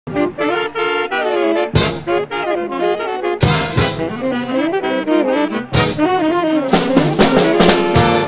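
A saxophone plays a jazz solo over a band, with drum and cymbal hits every second or two.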